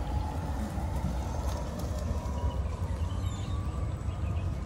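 Steady low rumble of a moving golf cart: wind buffeting and road noise as it rolls along a paved road.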